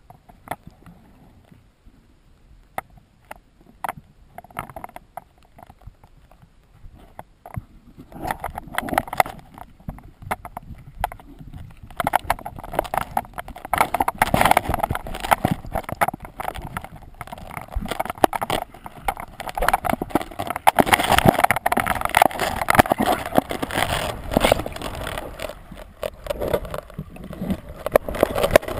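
Underwater handling noise from a wrist-mounted GoPro housing as the hand grabs and pulls along rock: scattered clicks at first, then from about eight seconds in a dense, louder run of knocks, clunks and scraping with rushing water.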